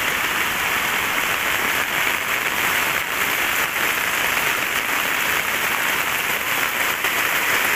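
Brown floodwater rushing and churning over a concrete drain edge in heavy rain, a steady dense hiss with no let-up. The drain is overflowing, no longer able to hold the runoff.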